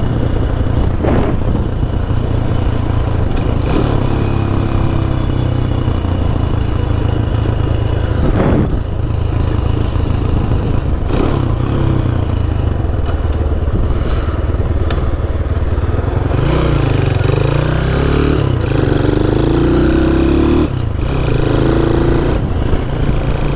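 Honda C90's small single-cylinder four-stroke engine running on the move, its pitch rising and falling with the throttle, most noticeably in the last third. A few short knocks or clatters sound along the way.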